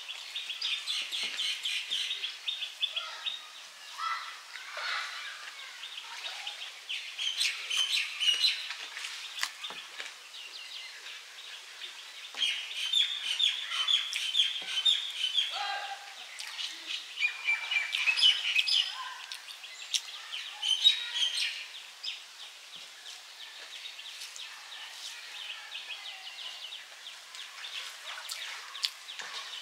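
Songbirds chirping and calling, with rapid, high trills repeating over and over and several calls overlapping; the chorus thins out and gets fainter over the last several seconds.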